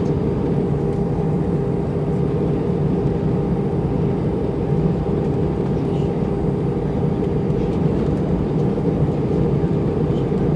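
Steady cabin drone of an Airbus A319-112 in flight, its CFM56 jet engines and rushing airflow heard from a window seat inside the cabin, with a steady hum tone running through the noise.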